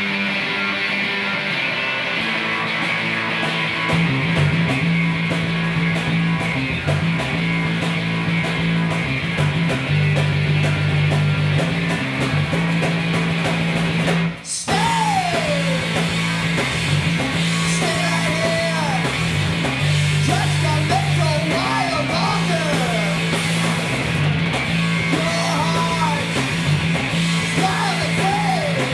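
Noise rock band playing with electric guitar, bass and drums: heavy, sustained low bass notes that change pitch, a brief break about halfway through, then sung and shouted vocals over the band.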